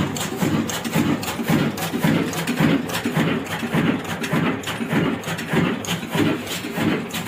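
24 HP Diamond stationary diesel engine running slowly with heavy flywheels, its firing beats coming as regular low thumps about two a second, with sharp clicks in each beat.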